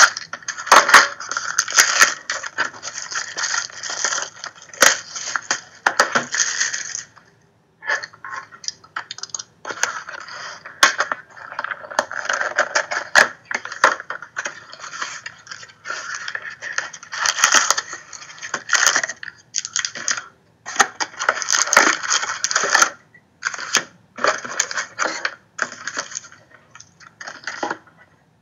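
Cardboard hobby box being opened and its shiny foil trading-card packs pulled out and handled: rustling and crinkling in irregular bursts, with sharp clicks and brief lulls.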